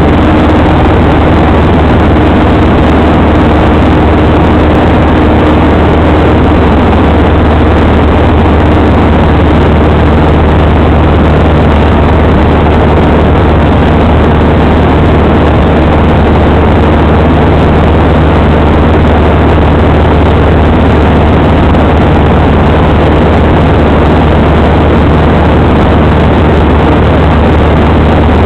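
Piper Super Cub's engine and propeller droning loudly and steadily in flight, heard from inside the cabin over dense rushing wind noise.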